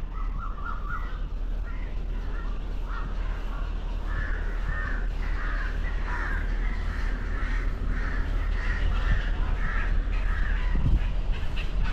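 Crows cawing over and over, the calls growing denser and louder about a third of the way in, over a steady low rumble.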